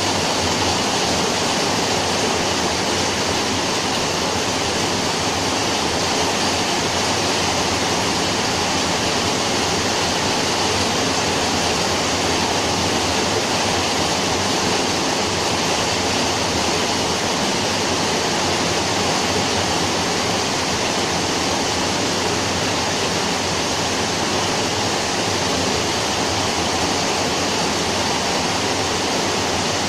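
Steady rain falling, an even hiss without breaks or changes.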